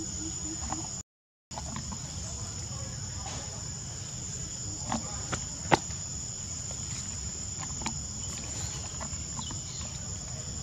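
Steady high-pitched insect drone over a low background rumble, broken by a few sharp clicks and snaps, the loudest a little past the middle. The sound cuts out completely for about half a second, about a second in.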